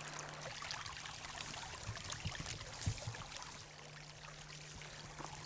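Faint, steady hiss with a low, even hum underneath and a few small clicks and rustles.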